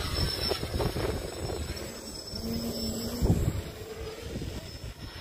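Small multirotor drone's propellers buzzing as it lifts off and climbs, with wind buffeting the microphone. A thump about three seconds in.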